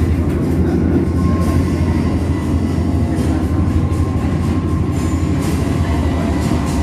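Loud, steady low rumble of the 5D submarine ride's soundtrack through the theatre speakers, with faint steady hums above it.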